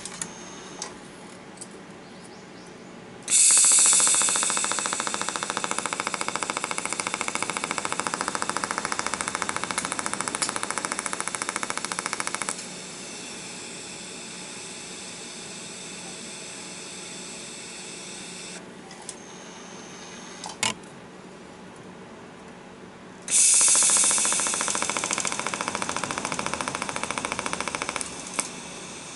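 A workshop tool running with a fast, even rattling buzz in two bursts, the first about nine seconds long and the second about five. Each burst starts abruptly and cuts off sharply.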